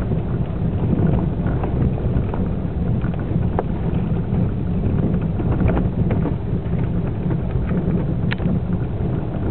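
Inside a Suzuki SX4 driving over a rough dirt forest trail: a steady low rumble of tyres and running gear on the uneven ground, with scattered small clicks and rattles. A brief high squeak comes near the end.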